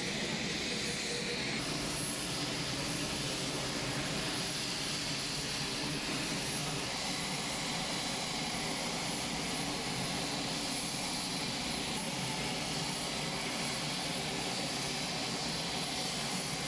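Steady aircraft engine noise, an unbroken rushing drone.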